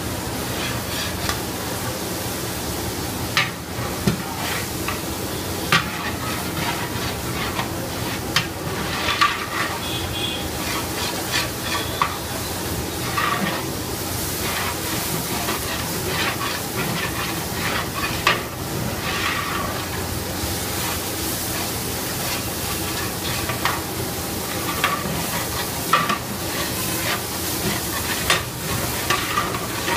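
A long metal ladle stirring spices frying in oil in a large aluminium pot: a steady sizzle, with irregular sharp clinks and scrapes of the ladle against the pot every second or so.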